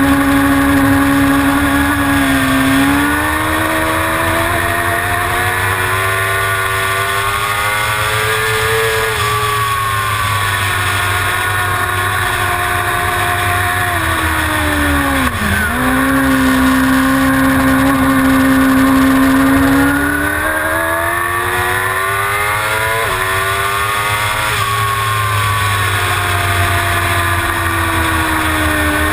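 Suzuki GSX-R750 inline-four engine running hard at racing revs, its pitch climbing under acceleration and dropping off for corners several times, with a sharp dip about halfway through. A steady rush of wind noise runs underneath.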